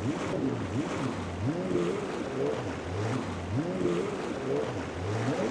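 Twin Mercury 250 outboard motors running hard, their pitch rising and falling over and over, about once a second, as the boat crosses rough waves. Rushing spray and waves sound underneath.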